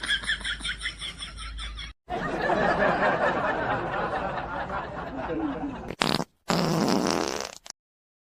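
Wet fart sounds: a rapid pulsing one for about two seconds, then a longer noisy one lasting about four seconds, then two short ones near the end, each cut off abruptly.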